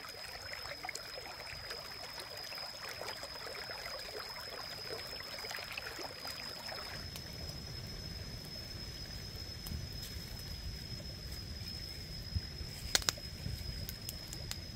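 Shallow rocky stream trickling, and a wood campfire burning with scattered crackles and a few sharper pops near the end. A thin steady high whine runs underneath.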